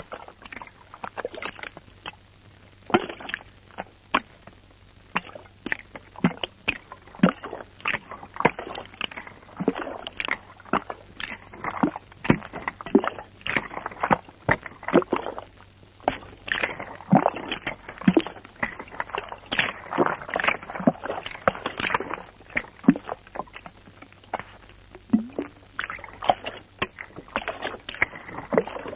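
Experimental noise music: a dense, irregular stream of sharp clicks, crackles and scrapes with no steady beat or tune, stopping near the end.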